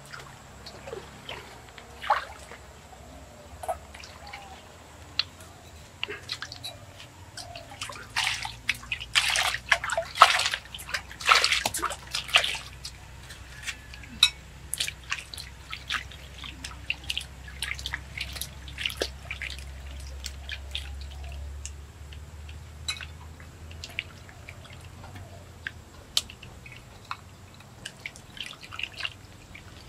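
Water splashing and dripping as vegetables are washed by hand in a metal bowl dipped in a shallow stream. A run of louder splashes comes about a third of the way in, followed by scattered drips and small splashes.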